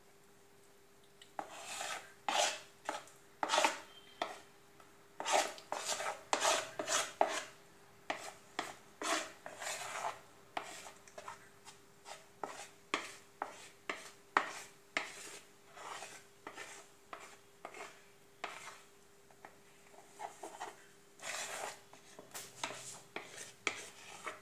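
A spoon scraping thick cake batter out of a plastic mixing bowl into a steel cake tin: a string of short scraping strokes, one or two a second at uneven spacing, starting about a second in.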